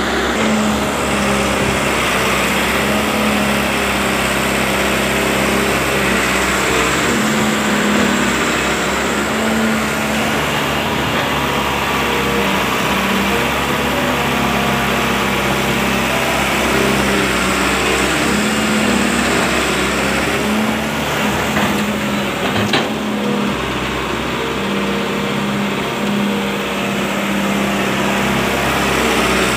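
Wheeled excavator's diesel engine running steadily under hydraulic load while the machine digs and dumps soil. A single sharp knock comes about 22 seconds in.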